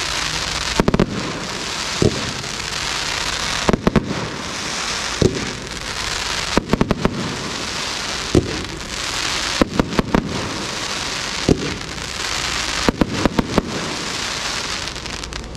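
A Showtime FX 25-shot crackling palm tree fireworks cake firing its shots one after another. Sharp reports come every second or so, some single and some in quick clusters, over a dense, continuous crackling from the crackling stars.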